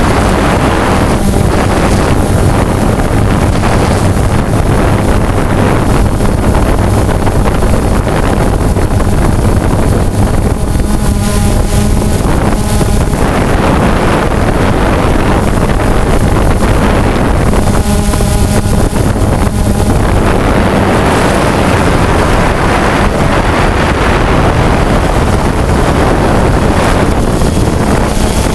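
DJI Phantom 2 quadcopter's four electric motors and propellers buzzing loudly and steadily in flight, heard up close from the camera mounted on the drone, with wind buffeting the microphone. The pitch shifts briefly twice as the drone manoeuvres.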